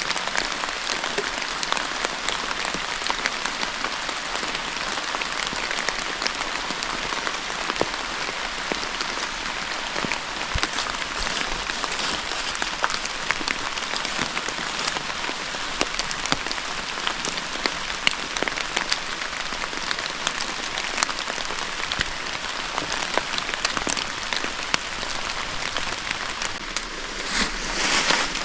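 Steady rain pattering: a dense, even hiss with many small drop ticks, briefly swelling louder near the end.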